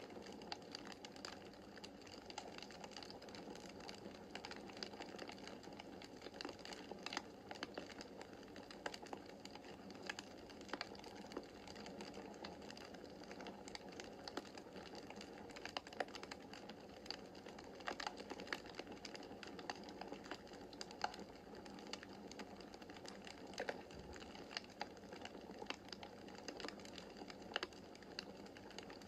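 Wood fire crackling in a fireplace: irregular sharp pops and snaps over a soft, steady rush of the flames.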